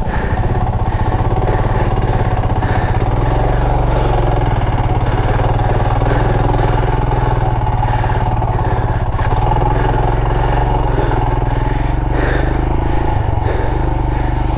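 Motorcycle engine running steadily under way, working through loose sand. Its pitch shifts a little now and then.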